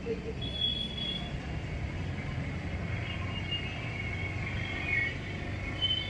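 Outdoor ambience: a steady low rumble with short, high bird chirps, once near the start and again from about three to five seconds in.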